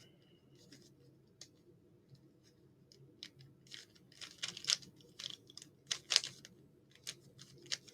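Rubik's cube being turned by hand: short clusters of plastic clicking and clacking as the layers turn, mostly quiet for the first three seconds, then coming in quick runs.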